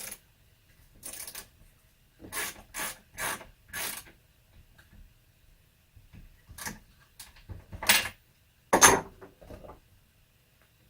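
Hand work on a chainsaw: a string of short clicking and scraping mechanical noises, uneven in spacing, with the loudest ones near the end.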